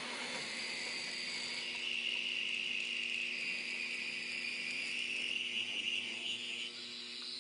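N scale CSX model diesel locomotive running on the track, its small motor and wheels giving a high whine. The whine gets louder about two seconds in as the engine comes closer, then drops near the end.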